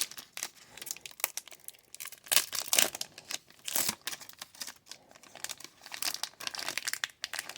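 Trading card pack wrapper crinkling and tearing in irregular crackles as it is worked open by hand; the pack is not smooth to open.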